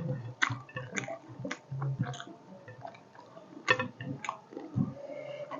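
Close-up eating sounds: wet chewing and lip smacks with irregular small clicks, a person eating fish curry with rice by hand.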